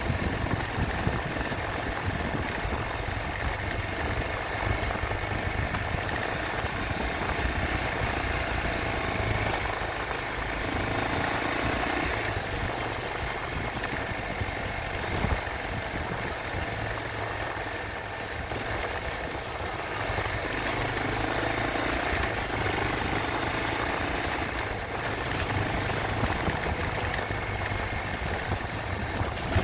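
Yamaha Serow 225's air-cooled single-cylinder engine running steadily, its note rising and falling a couple of times.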